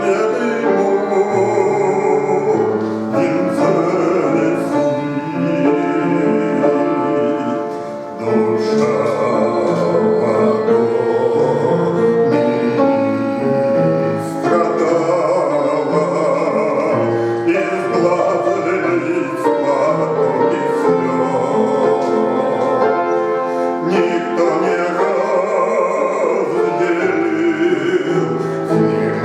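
A Christian hymn sung by a man with instrumental accompaniment, briefly softer about eight seconds in.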